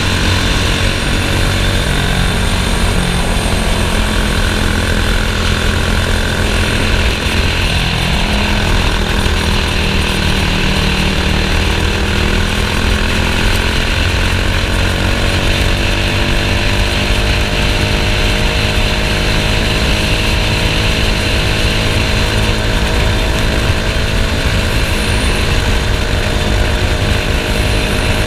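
Racing kart engine running loud and unbroken. Its note climbs slowly through the middle and drops off right at the end.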